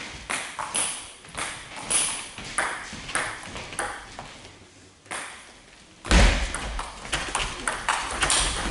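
Table tennis balls clicking off bats and tables in a sports hall, a quick irregular series of ticks. About six seconds in it gets louder and busier, with low thuds under the clicks.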